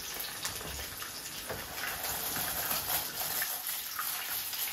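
Cornflake-coated chicken pieces sizzling in hot oil in a frying pan: a steady hiss with faint crackles.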